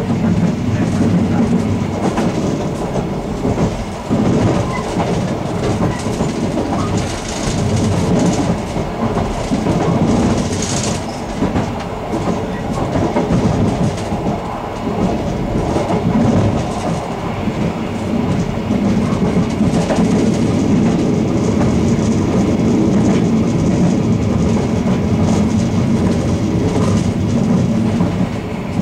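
Ganz-Mavag electric multiple unit running along the line, heard from inside the rear car: a steady rumble with wheels clattering irregularly over rail joints and points.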